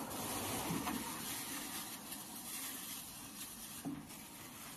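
Adhesive tape being pulled off the roll and wrapped around wiring, a dry crackling hiss that eases off after the first second, with a small click near the end.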